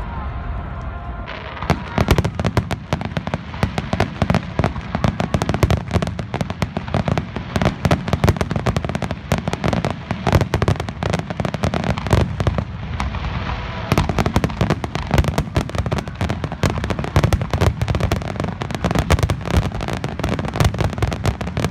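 Fireworks display with many shells going off in quick succession: dense, rapid crackling and popping over a continuous low rumble of bursts, thickening about a second and a half in.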